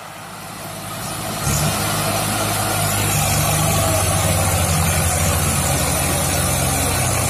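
Diesel tractor engines running hard under heavy load as a Swaraj 744 FE tows a sugarcane-laden Mahindra tractor and trailer out of a field. The sound fades in, then the steady engine note comes in louder about a second and a half in.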